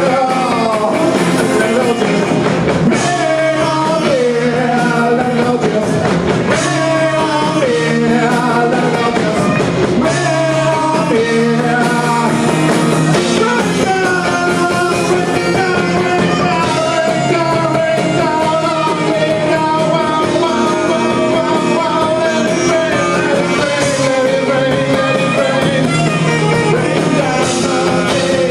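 Live rock band playing a song, with a male lead singer over the band.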